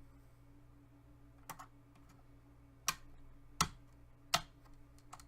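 Small, sharp clicks and taps, about half a dozen spread out with three louder ones in the middle: a small screwdriver working the casing screws out of a laptop, with screws and tool knocking against the plastic case. A faint steady hum sits underneath.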